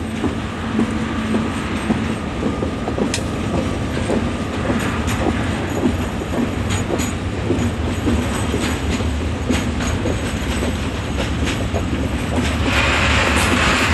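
Long freight train of intermodal wagons rolling slowly through the station, wheels clicking irregularly over rail joints and points. A louder hiss comes in near the end.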